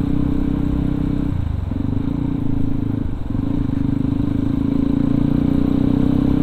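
Yamaha WR155R's single-cylinder engine running at low, steady revs through an aftermarket racing exhaust as the bike rolls slowly in traffic. The note dips briefly twice, about one and a half and three seconds in.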